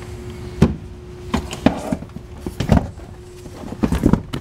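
Knocks and thumps of a deck boat's under-seat storage lid being handled and shut, about half a dozen spread over a few seconds, with a faint steady hum underneath.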